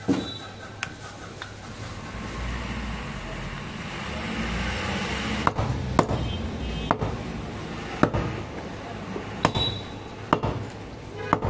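Butcher's steel cleaver knocking against a wooden chopping block while goat meat is cut from the ribs. There are about ten sharp, irregular knocks, some with a short metallic ring, over a low background rumble.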